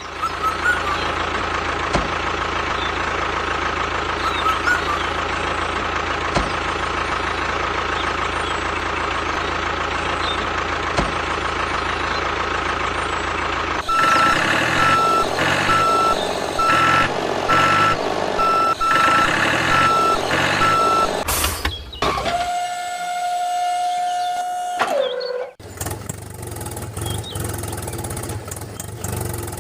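A steady mechanical running noise with a constant whine. Midway it gives way to a vehicle reversing alarm beeping regularly, a little more than once a second, for several seconds. Then comes a steady tone that drops in pitch as it ends, followed by more running noise.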